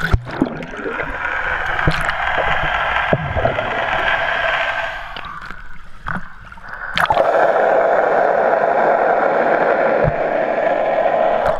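Water sloshing and gurgling right around an action camera's waterproof housing as it goes into a lazy river, with a few knocks on the case. The water sound eases off briefly around the middle, then comes back louder about seven seconds in.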